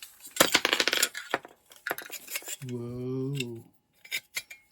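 Small metal parts and hand tools clinking and rattling as a chainsaw is taken apart: a dense rattle in the first second, then a few sharp clicks near the end. A drawn-out 'whoa' falls between them.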